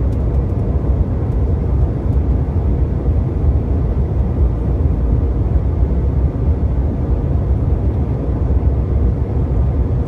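Steady cabin noise of a jet airliner on its descent to land: engine and airflow rush heard from inside the cabin, even throughout and heaviest in the low range.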